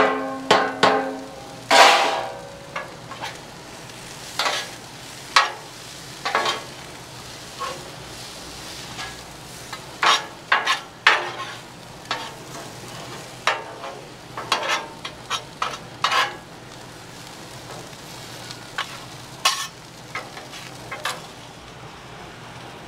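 Metal spatulas scraping and clacking across the steel top of a Blackstone 36-inch griddle as corn and bacon are tossed, over a steady sizzle of the food frying. The scrapes come in quick strokes, closely spaced at first and thinning out in the last few seconds.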